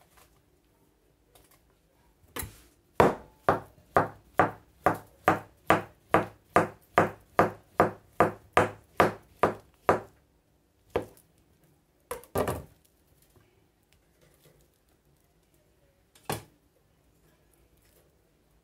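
Kitchen knife slicing a banana on a plastic cutting board, the blade knocking on the board in a steady run of about two and a half cuts a second for some seven seconds. A few separate knocks follow near the end.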